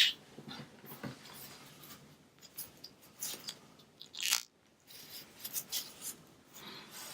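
Hands handling a plastic 1/12-scale action figure and its accessories: scattered small clicks and rustles, with sharper clicks at the start and about four seconds in.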